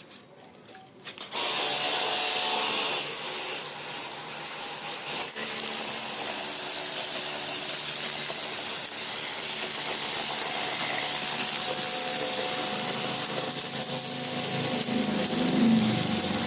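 A jet pump pressure washer switches on about a second in and runs steadily, its motor humming under the broad hiss of the water jet.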